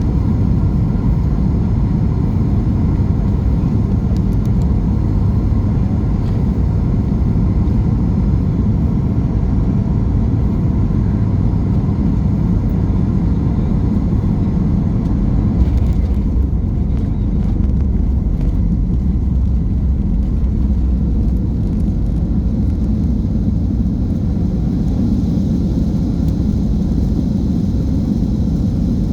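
Cabin noise inside a Boeing 737 MAX 8: a steady low rumble of its CFM LEAP-1B engines and the airflow. It shifts slightly about halfway through.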